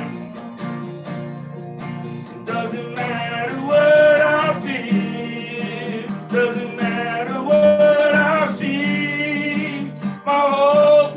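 A man singing a slow worship song to his own strummed acoustic guitar. The guitar strums alone at first, then the voice comes in about two and a half seconds in, holding long notes in phrases.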